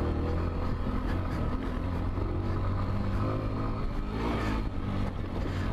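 Macbor Montana XR1 125cc trail bike's single-cylinder four-stroke engine running under throttle as it is ridden off-road, its note shifting in pitch as the throttle is worked, most clearly about four seconds in.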